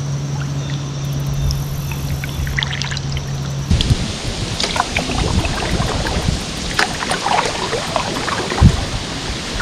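Wooden paddle strokes in calm creek water: the blade dips and pulls, and water trickles and drips off it with small splashes. A steady low hum runs under the first few seconds, then stops.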